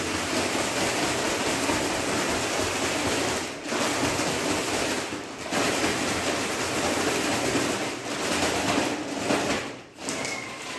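A plastic bag of ground sucuk spices (sweet red pepper, black pepper, chili flakes and salt) being shaken by hand to blend them: steady crinkling and rustling of the plastic as the powder shifts inside. It breaks off briefly about three and a half seconds in, again at about five seconds, and near the end.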